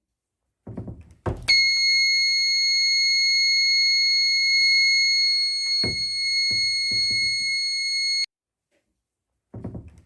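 Small 9 V battery-powered buzzer of a thread-triggered security alarm sounding one steady high-pitched tone: the alarm has been tripped. It starts just after a few handling knocks and a thunk, with more handling knocks partway through, and cuts off suddenly about eight seconds in.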